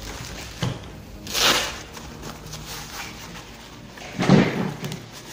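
Handling noise from a nylon blood-pressure cuff being picked up and folded: a small click, a short fabric swish, and a heavier knock a little after four seconds in.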